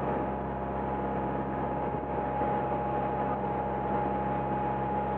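Boat engine running steadily while underway, a constant low drone with a faint steady high whine and a rush of noise over it.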